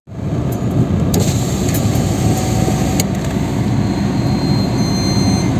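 Steady car engine and road noise heard from inside the cabin while the car is driven slowly.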